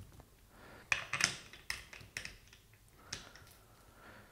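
A handful of light, scattered clicks and taps of hard plastic and metal parts as a Wabco air suspension compressor is handled during reassembly.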